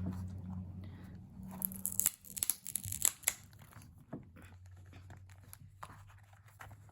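Packaging being handled: crinkling and rustling, busiest for a couple of seconds near the start, then a few softer rustles.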